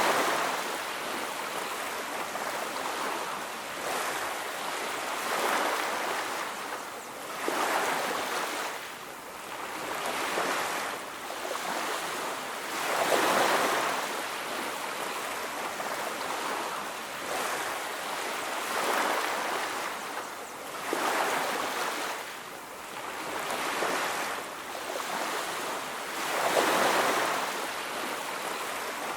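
Ocean surf on a beach: waves wash in and draw back as a rushing hiss that swells and fades every two to three seconds, with a few bigger waves standing out.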